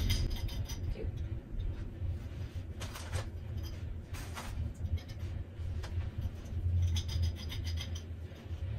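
Small green plastic C-clamps of a sock knitting machine being handled, rubbed and set down, with a few light rustles and clicks. A low steady hum sits underneath.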